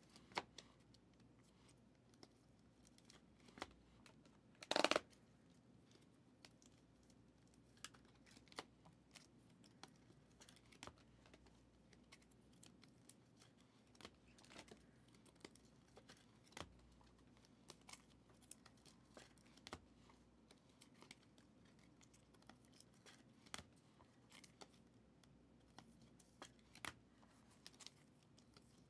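Foil trading-card pack wrappers being torn open and crinkled while cards are handled: faint scattered rustles and clicks, with one louder rip about five seconds in.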